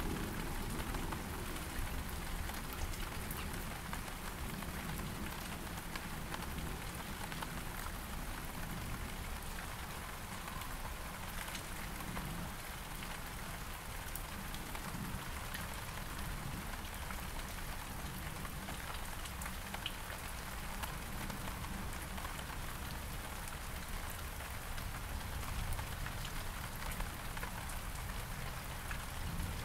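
Steady rain pattering on several kinds of surfaces during a thunderstorm, with dense fine drop ticks and a steady low rumble underneath.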